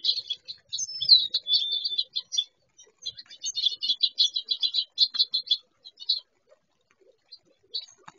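A flock of small songbirds chipping and twittering rapidly at a high pitch, in two busy bursts with a brief lull between, then only scattered chips. About a second in, one longer whistled note falls and then holds level.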